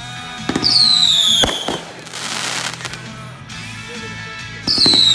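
Consumer fireworks going off: twice a loud whistle falling in pitch for about a second. The first whistle ends in a sharp bang, with crackling between the two.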